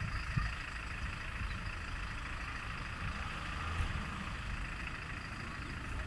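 MAN fire engine's diesel engine running steadily, with an even hiss above it.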